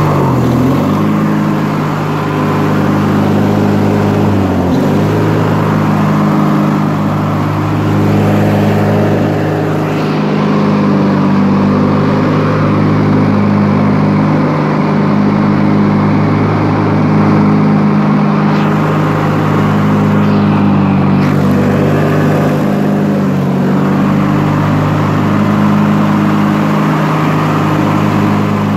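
Lawn tractor's 1993 Briggs & Stratton opposed-twin engine running steadily as the tractor drives, with a few brief dips in engine speed.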